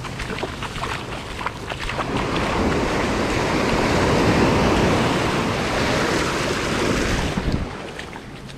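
Ocean surf: a wave breaking on the shore and washing up the beach, a rushing sound that swells for a few seconds and then dies away near the end.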